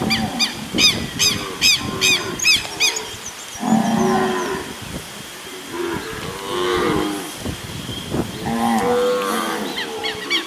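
A herd of zebu cattle mooing, several long low calls one after another through the second half. Over the first three seconds a fast series of high chirps sounds above them.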